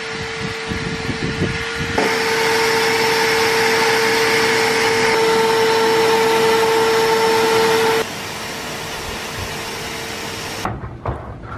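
Vacuum cleaner motor running with a steady whine. It grows louder about two seconds in and drops back abruptly near eight seconds.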